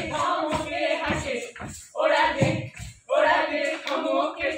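A group of voices singing or chanting together in short phrases, each about a second long, with brief breaks between them.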